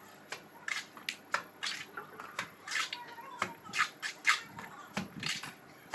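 Plastering trowel scraping and slapping cement plaster on a wall: short, irregular strokes, about two or three a second.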